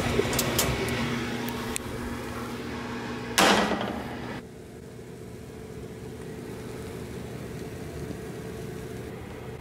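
A metal sheet pan is pulled off an oven rack with light clicks and rattles, then set down on the stovetop grate with a metal clatter a little over three seconds in. A steady low hum follows.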